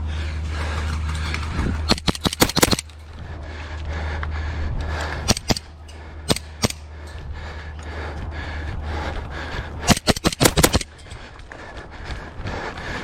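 Airsoft guns firing in quick strings of sharp shots: a rapid volley about two seconds in, a few scattered shots a few seconds later, and another rapid volley near ten seconds.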